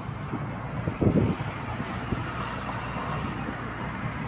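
Road traffic heard from a moving scooter: engines and tyre noise running steadily, with a short louder low rumble about a second in.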